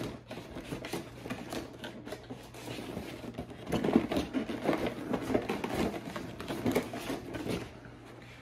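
Clear plastic packaging tray crinkling and clicking as it is pulled out of a cardboard box. The crackling is loudest about four seconds in and fades near the end.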